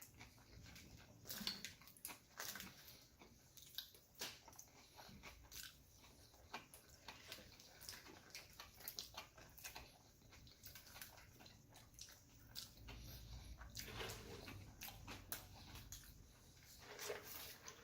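Faint close-up chewing of a saucy burger, with a steady string of small wet lip smacks and mouth clicks. A low rumble joins in during the last few seconds.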